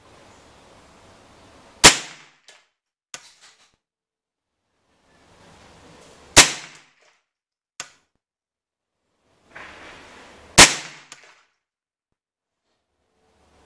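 Three single shots from an AR-15 fitted with an NEA .22 LR conversion unit, firing CCI standard-velocity rounds, about four and a half seconds apart. Each is a sharp crack with a short tail, followed by faint clicks.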